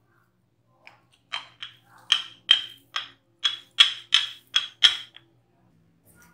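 Wooden rolling pin knocking against a round wooden rolling board (chakla) while a puri is rolled out: a quick run of about eleven sharp wooden clacks, two to three a second, ending about five seconds in.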